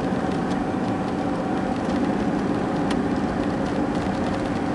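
Jeep driving on snowy roads, heard from inside the cabin: a steady drone of engine and road noise, with a few faint clicks.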